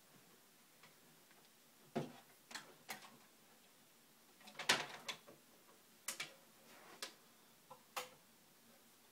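A series of irregular clicks and knocks from handling, about seven over several seconds, the loudest a little past halfway.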